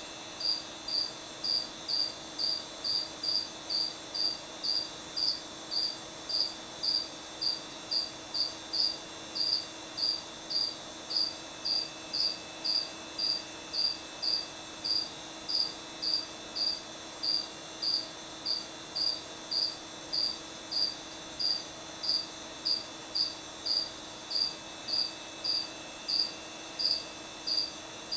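A cricket chirping steadily, short high chirps at about two a second.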